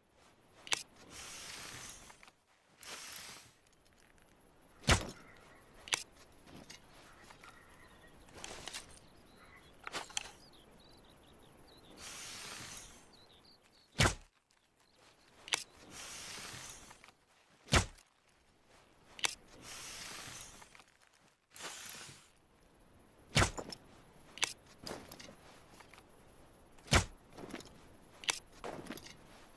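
Compound bow being shot again and again: about seven sharp, loud snaps or thuds spread unevenly, with short hissing swishes of about a second between them.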